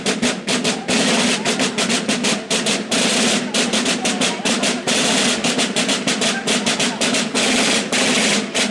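Carnival street band's snare drums and bass drums playing a fast, unbroken drumming beat.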